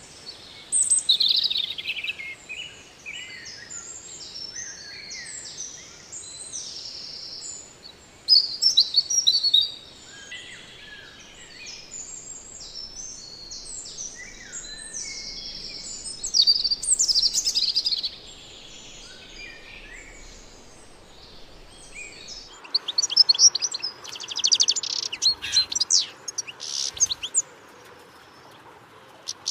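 Parrot chirping and whistling in short high calls, louder in bursts, ending in a fast rattling chatter of rapidly repeated notes.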